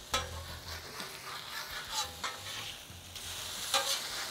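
Pork patties sizzling on a flat-top griddle as they are flipped with a metal spatula, which clinks and scrapes on the steel a few times. The sizzle grows after the flip, about three seconds in.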